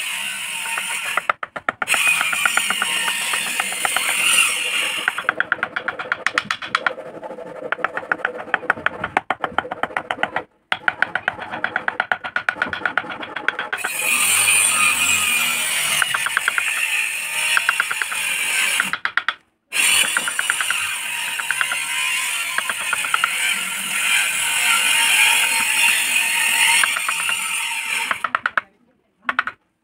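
A small wood-carving chisel working a relief flower design in a wooden board, making rapid, regular clicking and tapping as it cuts, with a few short breaks.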